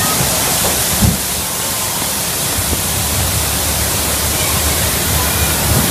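Water rushing down a log flume channel under the boat: a loud, steady hiss, with a low rumble and one short knock about a second in.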